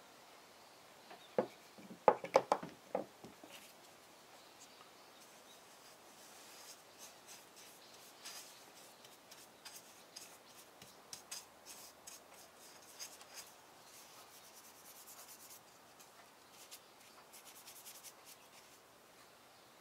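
A few sharp light knocks about two seconds in, then a flat bristle brush stroking oil over a wooden ladle: soft, quick scratchy brush strokes on the wood.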